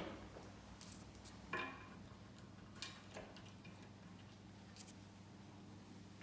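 Light clicks and knocks of steel bender parts and fasteners being handled during assembly, about half a dozen scattered over the first few seconds, over a faint steady low hum.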